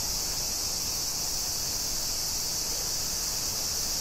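Steady, unbroken high-pitched chirring of insects.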